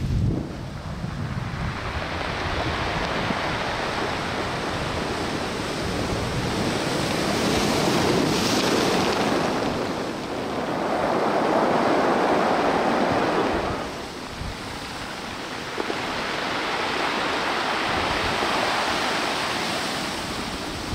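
Large hurricane swell breaking against a concrete seawall and its rocky shore. The surf comes in surges: a swell about eight seconds in, the loudest break from about ten to thirteen seconds, a short lull, then another wave building.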